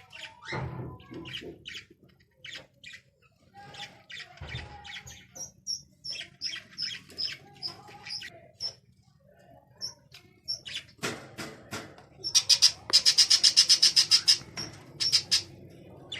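Small birds chirping over and over, with a fast run of loud, rapid chirps near the end.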